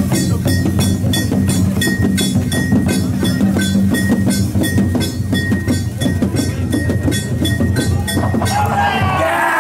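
Danjiri festival float's percussion playing a fast, even beat of about three sharp, ringing strikes a second over a low rumble. Near the end, crowd shouting and cheering comes in.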